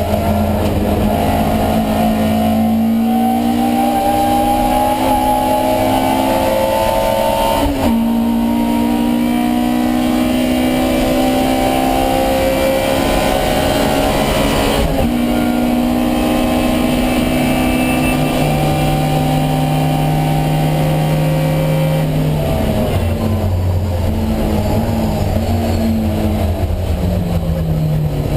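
Alfa Romeo Giulia 1600's twin-cam four-cylinder race engine pulling hard under load, its pitch climbing and then dropping sharply at two upshifts, about eight and fifteen seconds in. In the later part the engine holds a lower, steadier note, then drops lower again as it comes off the pace.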